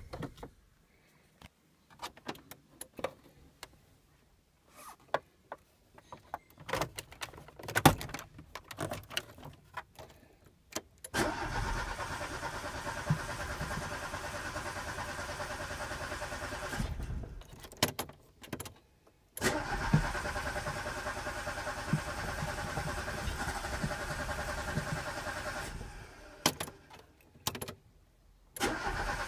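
Peugeot 205's carburetted engine being turned over on the starter in three long attempts of about six seconds each, after a run of clicks from the key and controls. It is a starting fault: the engine will not start.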